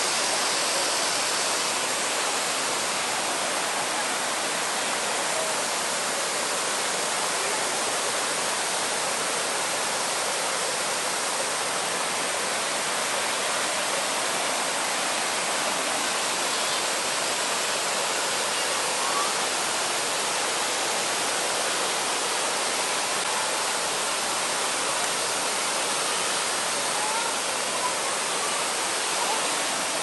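Small waterfall pouring into a rocky mountain-stream pool, a steady rush of falling and running water.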